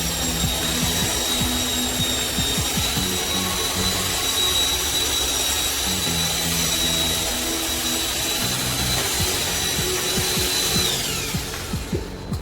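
Handheld electric power tool running at steady full speed with a high whine, released about eleven seconds in and winding down with a falling pitch.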